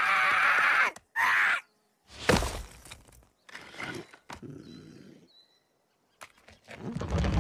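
Animated baby Groot's short strained cry, cut off about a second in and coming once more briefly. A single heavy thud about two seconds in as he falls face down onto stony ground, then faint scuffs and rustles.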